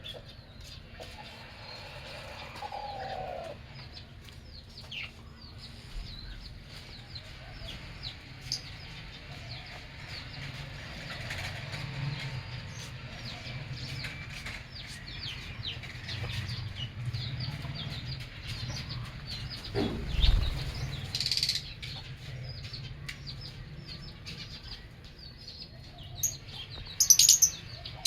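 Many lovebirds chirping continually in quick, short calls, with a dull thump about two-thirds of the way through and a few louder, shriller calls near the end.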